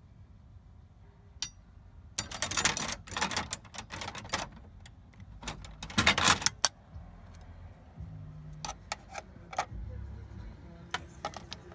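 Steel hand tools clinking and rattling against each other as they are handled in a toolbox drawer: two bursts of rapid metallic clatter, then scattered single clicks.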